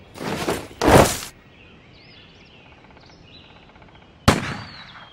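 Cannon salute sound effects played over the show's loudspeakers: three booms, two close together about a second in and a sharp one near the end, each trailing off in an echo.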